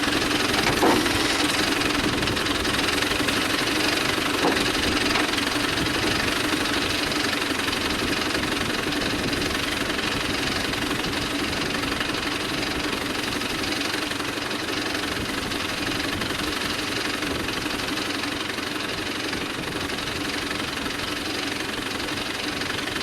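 ACE 14XW hydra crane's diesel engine running steadily, slowly getting a little quieter.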